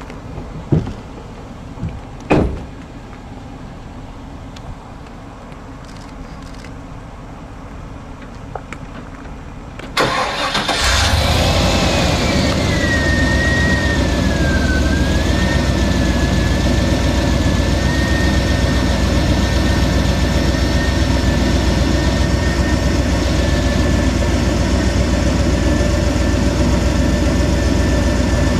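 A few sharp knocks, then about ten seconds in an engine starts and runs steadily: a loud low drone with a high whine that dips at first and then holds level.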